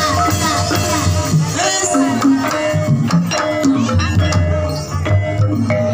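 Javanese gamelan playing live ebeg (kuda kepang) accompaniment: bonang gong-kettles struck with padded sticks, ringing pitched notes, over a steady drum beat.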